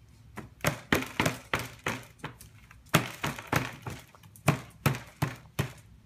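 A baby's open hands slapping a plastic high chair tray in a quick, irregular run of sharp smacks, about three a second with brief pauses.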